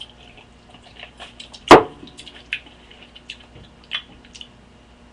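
Small wet mouth clicks and smacks, with one short, sharp, louder click a little under two seconds in.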